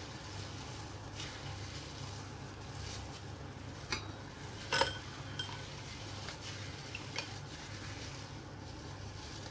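A metal spoon clinking against a steel bowl and cooking pot three times, loudest about five seconds in, while shrimp-ball paste is scooped and shaped, over a steady low hum.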